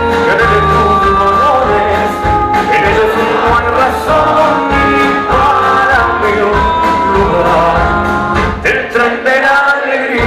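Live acoustic band playing an instrumental passage, with guitar, upright bass and drums over a steady beat.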